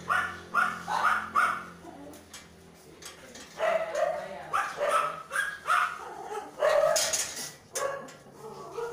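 Rottweiler barking and yelping excitedly. It starts with a quick run of short high yelps, then after a brief lull gives lower barks. A louder, harsher one comes about seven seconds in.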